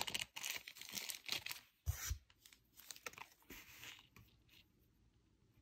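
Rustling and crinkling of small packaging as a tumbled rainbow moonstone is unwrapped and handled, with one heavier thump about two seconds in. The rustling dies away after about four and a half seconds.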